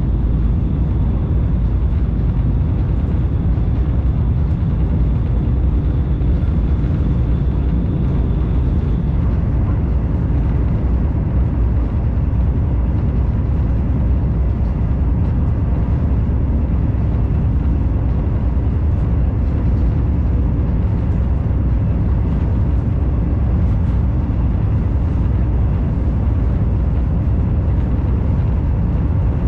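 Steady low rumble of a commuter train running on the track, heard from inside the passenger carriage, with a faint high whine that stops about nine seconds in.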